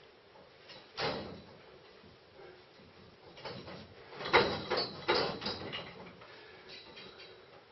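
Metal scaffolding tubes knocking and rattling as a barefoot climber pulls up onto a bar and moves along it: one knock about a second in, then a quick cluster of knocks and clanks around the middle.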